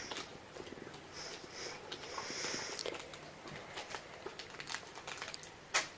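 Faint rustling and crinkling of packaging being handled, with scattered small clicks and a sharper click near the end.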